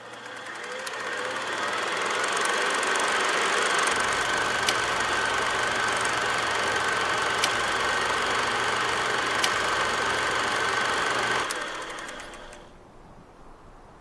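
Old cine film projector sound effect: a steady mechanical whir and clatter with a constant hum and a few sharp pops. It fades in over the first couple of seconds and dies away about twelve seconds in.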